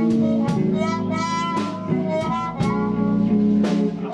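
Live band playing an instrumental passage between sung lines of a blues: semi-hollow electric guitar, keyboard, bass guitar and drum kit, with cymbal strikes about every half second.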